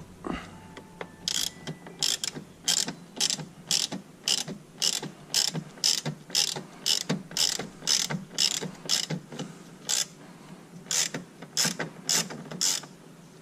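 Ratchet wrench with a T30 Torx bit clicking in repeated short strokes, about two a second, backing out snug Torx bolts; a brief pause about ten seconds in.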